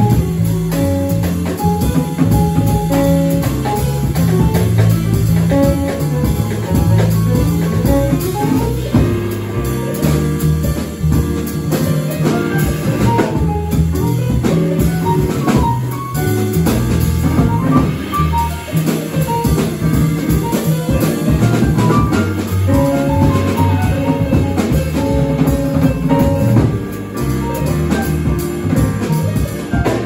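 Live jazz quartet playing: upright bass, piano, drum kit and saxophone together in a steady groove.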